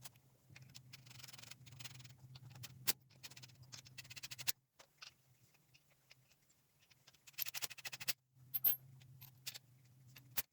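Sharp metallic clicks and taps with stretches of scraping, over a low hum that comes and goes, as the wheel and lug nuts are handled while the wheel goes back on.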